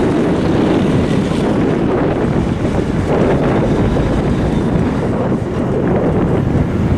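Wind buffeting the microphone, with the engine of a heavy truck running as it drives away.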